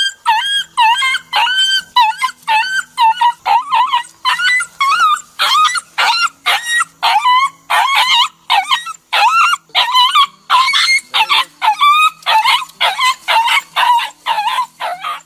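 A dog yelping and whimpering in pain: a rapid, unbroken run of short, high-pitched cries that bend up and down in pitch, about two to three a second.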